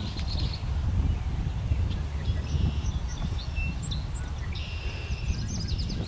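Wind rumbling on the microphone, with marsh birds calling over it: a buzzy call three times, about two seconds apart, and a few short, high chirps.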